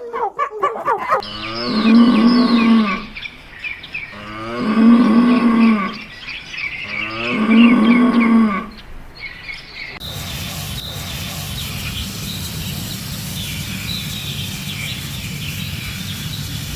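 A cow mooing three times in long, drawn-out calls about a second and a half apart. After that, a steady background hiss with faint high chirps.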